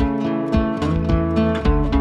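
Background music: an acoustic guitar piece with plucked notes struck in a steady rhythm.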